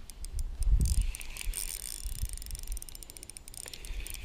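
Spinning reel being wound, giving quick runs of even clicks that stop and start. Low buffeting on the microphone around a second in.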